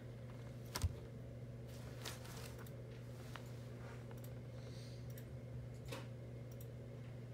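A single sharp knock about a second in as the phone is set down on the desk, then a steady low hum of room tone with a few faint clicks.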